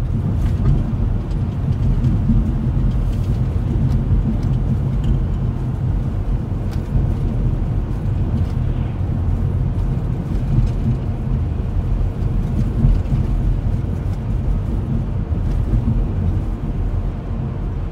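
Steady road and engine rumble heard from inside a moving vehicle's cabin while it drives along.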